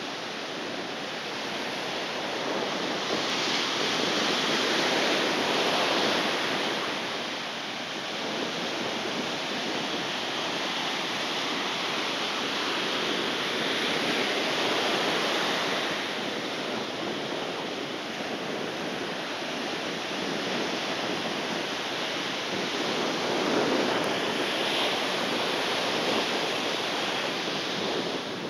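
Ocean surf breaking and washing up a sandy beach: a continuous rushing that swells louder every several seconds as waves come in.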